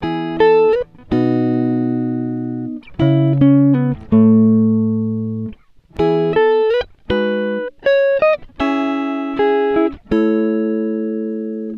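Background music: a solo guitar playing a slow melody of single plucked notes, each ringing and fading, a few with slight slides in pitch, with no drums.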